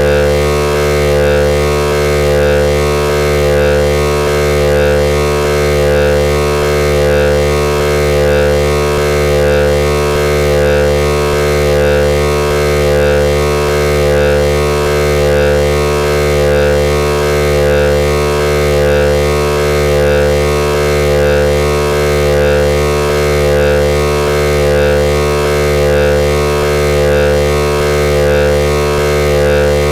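Modular synthesizer drone: a dense stack of steady held tones with a slow, even throb that does not change.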